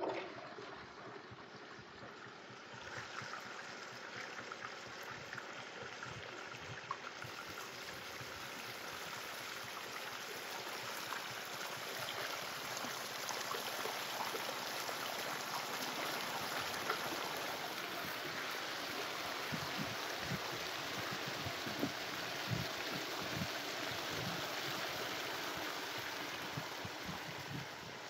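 Water running through a highbanker sluice box: spray-bar water churning in the hopper and a sheet of water pouring off the end of the sluice, a steady rush of splashing water that builds gradually over the first dozen seconds.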